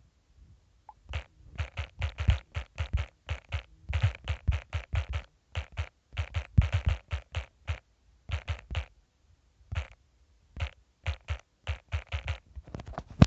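Rapid, irregular tapping, several sharp taps a second, with brief pauses near the start and about ten seconds in. It fits fingers typing on a phone touchscreen close to its microphone.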